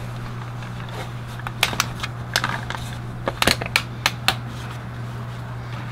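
Plastic engine-oil jug handled and wiped with a paper towel while its screw cap is twisted off: a scatter of short sharp plastic clicks and scrapes in the middle, over a steady low hum.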